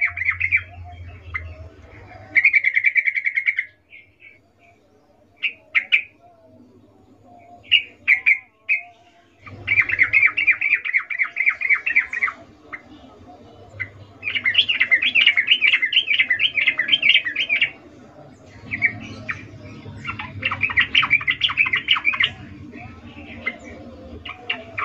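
Yellow-vented bulbul (trucukan) giving rapid, chattering call bursts, each a fast train of notes lasting one to three seconds, with a few short single calls between. This is the female's breeding-condition 'ngecuplik' chatter, used as a lure to set male bulbuls calling.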